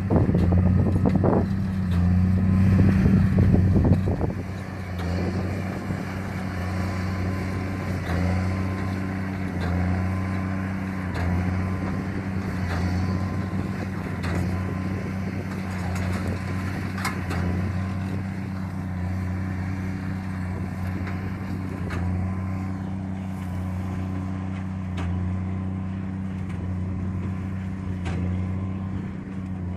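Farm tractor engine running steadily at constant speed, with a louder rumble in the first four seconds.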